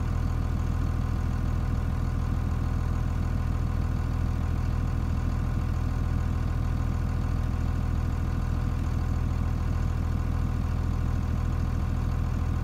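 Dodge Ram's 5.9 L Cummins turbo diesel idling steadily at about 800 RPM, driving a belt-driven York 210 air compressor that is pumping the onboard air tank back up to pressure.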